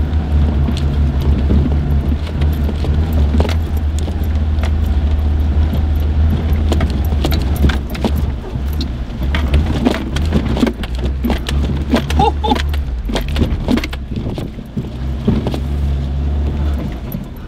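Mitsubishi Pajero Junior's small four-cylinder engine running with a steady low drone in low-range four-wheel drive over a rough track. Dense clinking and rattling from the bouncing vehicle comes through the middle stretch, and the drone eases off near the end.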